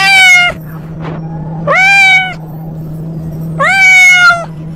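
A long-haired grey-and-white cat meowing loudly in protest while being handled: three long drawn-out meows, each rising then held. A steady low hum runs underneath.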